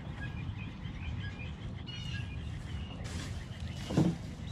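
Small birds chirping in short, high, repeated notes over a steady low rumble. A single thump near the end is the loudest sound.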